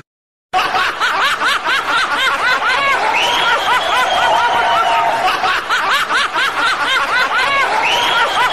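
A high-pitched, rapid snickering laugh, starting after half a second of silence. It comes in quick rising-and-falling bursts over a held tone, and the same laugh repeats about five seconds later as a loop.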